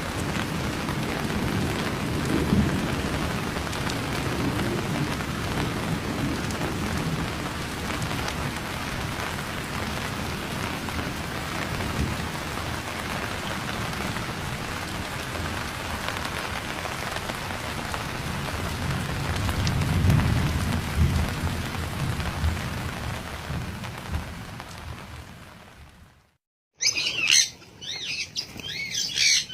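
Steady heavy rain with rumbles of thunder, the loudest roll about twenty seconds in. The rain fades out, and after a brief gap birds start squawking and calling near the end.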